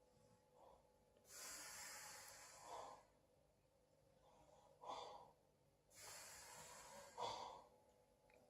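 A sleeping person's soft snoring breaths, quiet. Two long airy breaths each end in a short puff, with another short puff between them, about one breath cycle every five seconds.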